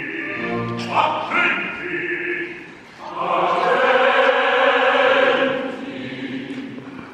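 Live opera singing with orchestra: a low male voice sings at first, then the chorus comes in loud and full about three seconds in and eases off near the end.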